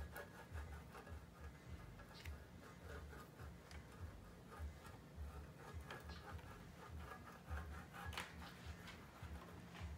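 Block of hard kefalograviera cheese rubbed down a metal box grater: faint, irregular scraping strokes with light knocks.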